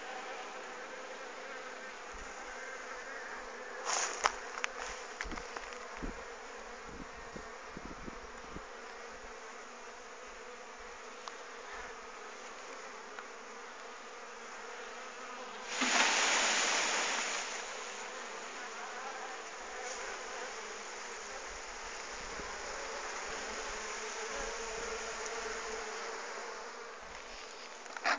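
A honeybee swarm buzzing steadily as it is shaken off its branch and settled into an open hive box. A few handling knocks and clicks come in the first third, and a loud rush of noise lasts about a second and a half midway.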